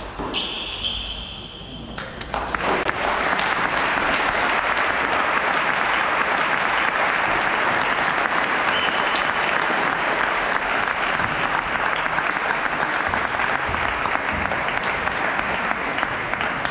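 Audience in the stands applauding: steady clapping that starts about two seconds in, after a couple of sharp knocks.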